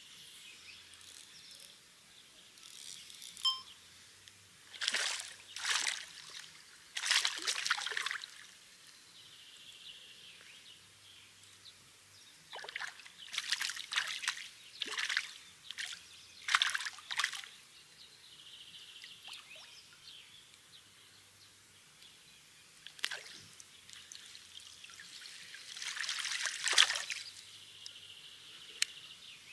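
Water splashing and trickling in short, irregular bursts at a lake's edge, over a faint steady background.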